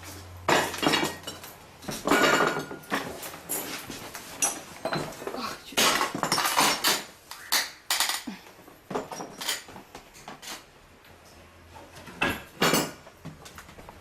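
Irregular clattering and clinking of broken glass and household objects being picked up and moved in an earthquake-damaged room. The bursts are busy through the first two-thirds, then thin out, with two last clatters near the end.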